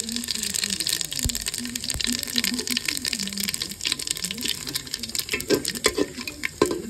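Whole spices (cloves, cardamom, cinnamon stick, cumin seeds, bay leaf) sizzling and crackling in hot oil in an aluminium pot: a dense, steady crackle full of small pops. In the last couple of seconds a metal spatula knocks and clinks against the pot a few times.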